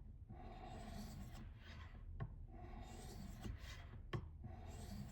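Steel ice auger blade being honed by hand on a fine white ceramic sharpening stone: about four rubbing strokes, each ending with a light click as the blade comes off the stone.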